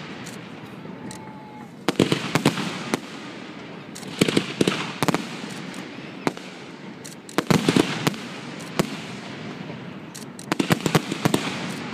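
Fireworks finale barrage: aerial shells bursting in four clusters of rapid bangs, about one cluster every three seconds, with a continuous rush of noise between them.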